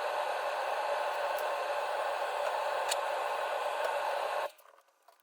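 Steady hiss with a few faint ticks, cutting off suddenly about four and a half seconds in.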